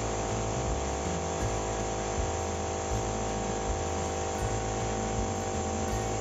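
Motomil 24-litre air compressor running steadily with a constant motor hum as it pumps up its tank. It is on a test run of a homemade head gasket cut from Tetra Pak carton, fitted together with a new reed valve.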